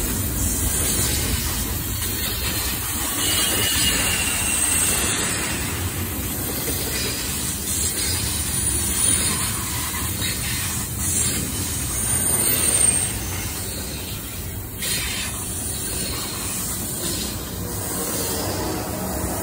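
Double-stack container well cars of a CSX intermodal freight train rolling past close by: a steady rumble of steel wheels on rail, with a few faint, brief high squeals from the wheels.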